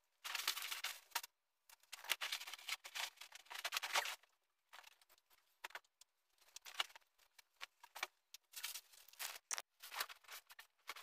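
Rustling and scraping of things being handled and moved, such as cloth and household items during tidying. The sound comes in two longer stretches in the first few seconds, then shorter scattered bursts.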